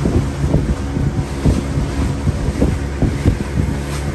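Wooden fishing boat's engine running steadily while under way, with wind buffeting the microphone in irregular low thumps.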